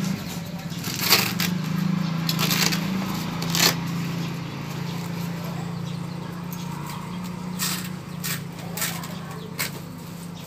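A large black fabric bag being opened and handled: short rasps of zips and rustling fabric, several times, the loudest about a second in and near four seconds, over a steady low hum.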